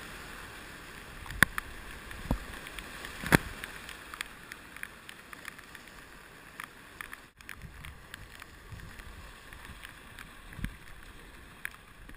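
Whitewater rushing around an open canoe, heard from a camera on the boat, louder in the first few seconds and easing as the water calms. A few sharp knocks and splashes stand out, the loudest about a second and a half and about three seconds in.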